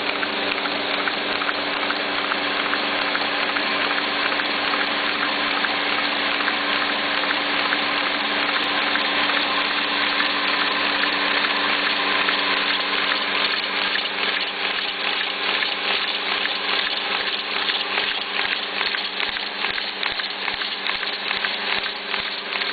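384SB paper folding machine running steadily: a dense whirring rush over a steady motor hum, with fast fine ticking from the feed and fold rollers.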